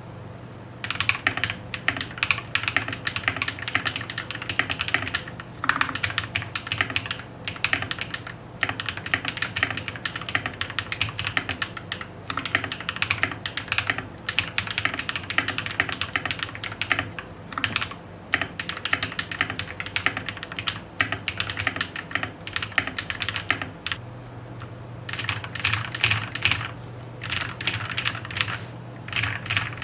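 Typing on an RK61 61-key mechanical keyboard fitted with lubed Glorious Panda tactile switches and plate and case foam: rapid runs of key clicks with short pauses between bursts, starting about a second in. A low steady hum sits underneath.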